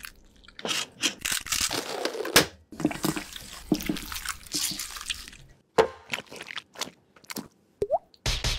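Wet squelching and squishing as gloved hands mash peeled hard-boiled eggs with mayonnaise in a steel bowl, a dense run of short bursts for about five seconds. After that come a few sparse taps and a brief rising squeak near the end.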